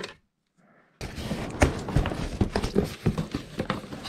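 Cardboard box being opened by hand with scissors: irregular knocks and scrapes of the cardboard flaps being pulled and handled, starting suddenly about a second in.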